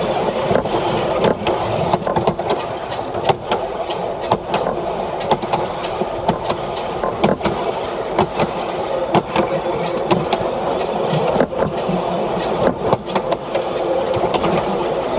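DP diesel railcar rolling along the track: a steady running rumble with frequent irregular knocks and rattles from the wheels and body.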